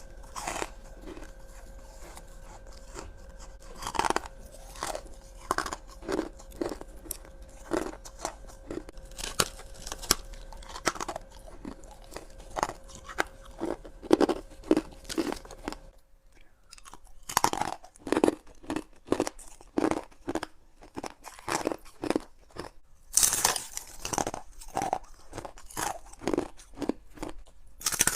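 Someone biting and chewing frosty freezer ice from a humidifier-shaped ice tray: a run of sharp, crisp crunches about every half second. A faint steady hum runs underneath and stops about sixteen seconds in, where there is a short pause before the crunching resumes.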